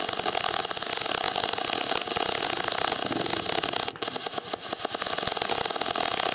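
MIG welding arc on aluminium from a MIG 250E inverter welder: a steady crackling hiss as the aluminium wire feeds into the weld. It breaks off for a moment about four seconds in, then resumes.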